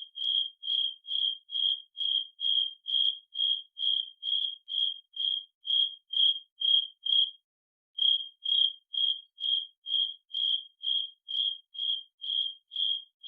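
Electronic beeping: a run of short, high beeps all at one pitch, a little over two a second, with a brief pause about seven seconds in before the beeping resumes.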